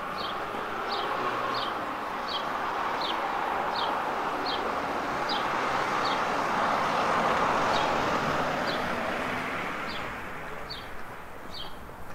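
A road vehicle passing, its tyre and engine noise swelling to a peak about seven to eight seconds in and then fading. A short high chirp repeats about every three-quarters of a second throughout.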